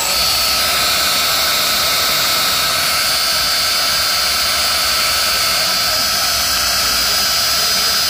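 Car starter motor running free on a 12 V battery, a steady high whine with a hiss. It draws nearly 30 A at about 11 V with no load.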